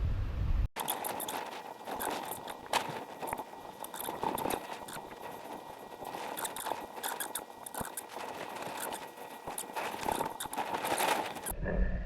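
Hands working a small screw on a phone mount with an Allen wrench: scattered light metal clicks and scrapes, close to the microphone.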